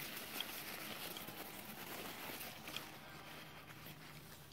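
Soft rustling of packing material, with a few light clicks, as a hand digs into a cardboard box for the next item; it tapers off near the end.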